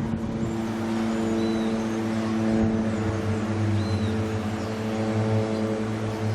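Steady engine drone, one low pitched hum with its overtones, swelling and easing slightly, with a few faint high chirps.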